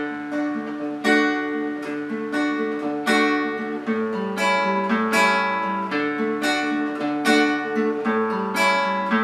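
Acoustic guitar fingerpicking the right-hand rhythm of a folia de reis in D major: a bass note followed by fingers plucking the upper strings together, in regular strokes. The chord changes, with a lower bass note, about four seconds in.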